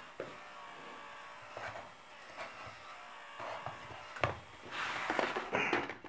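Small gear motors of an animatronic crow scarecrow whirring as they swing its head and drive its wings through the crank linkage, with a knock about four seconds in and louder clattering near the end. A faint electronic bird song plays from its small unboxed speaker.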